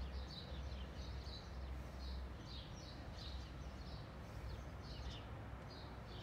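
Birds chirping in short high calls a few times a second over a steady low rumble.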